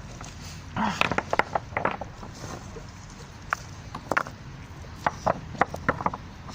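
Rocks knocking and scraping against each other as they are lifted and shifted by hand, in irregular sharp clacks with a cluster about a second in and single knocks after.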